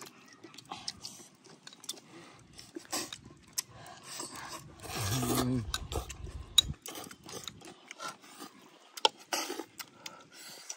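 Noodle soup being eaten: noodles slurped and chewed, with chopsticks and a spoon clicking against ceramic bowls. About five seconds in comes one longer, louder slurp with a hum of the voice.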